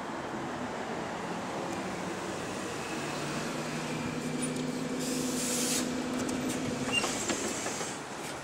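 A single-deck bus's diesel engine running steadily as the bus stands at the stop. A short burst of compressed-air hiss comes about five seconds in, followed by a few clicks.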